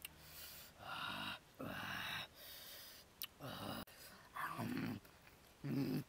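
A person eating noisily: wet chewing and lip-smacking mixed with low 'mm' sounds, in a string of short bursts about a second apart.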